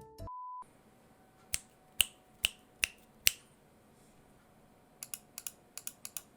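Keystrokes on a Glorious GMMK Pro fitted with Glorious Panda tactile switches and PBT keycaps: five single presses about half a second apart, then a quick run of about nine presses near the end. A short steady beep sounds at the very start.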